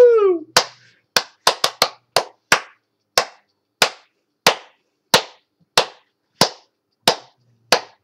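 Hands clapping to keep time for a Turkish folk song: a quick cluster of claps, then a steady beat of about three claps every two seconds. A sung note slides down and fades in the first half-second.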